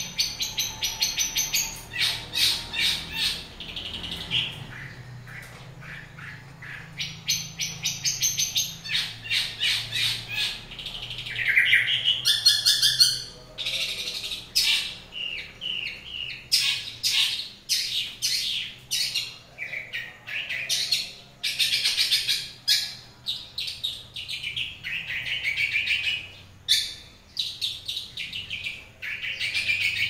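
Caged long-tailed shrike (cendet) singing: a long, varied song of rapid strings of harsh, scratchy notes in bursts with short breaks, with a few clearer whistled notes about twelve seconds in.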